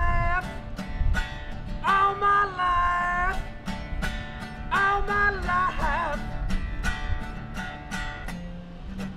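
A man singing along to his own strummed acoustic guitar. Two held sung lines come in the first six seconds, then the guitar strums on alone.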